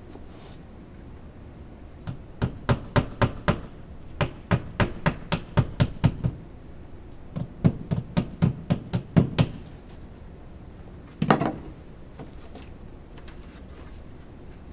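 Hammer tapping in the nail of a picture hook on a wall, in three runs of quick light taps at about four or five a second, followed about two seconds later by a single heavier thump.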